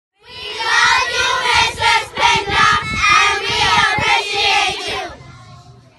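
A group of children's voices singing together, loud, cutting off sharply about five seconds in.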